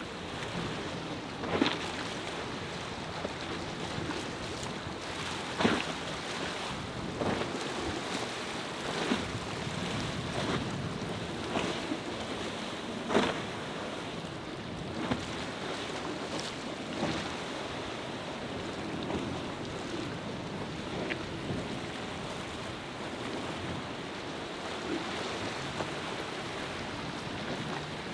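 Choppy sea and wind noise, with sharp water slaps and splashes every second or two as a center-console boat pounds through the waves; the loudest slaps come near the start and about halfway through.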